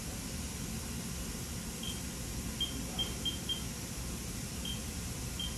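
Haas CNC control keypad beeping as keys are pressed: seven short high beeps, starting about two seconds in, three of them in quick succession near the middle. A steady low hum runs underneath.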